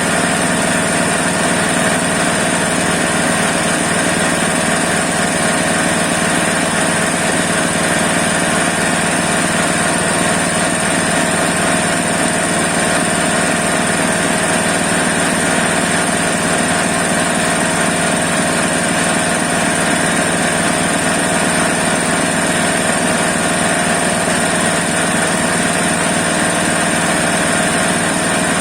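New JT 2700 Pro grass chopper running steadily at an even speed, with no change in pitch or level, during a test run.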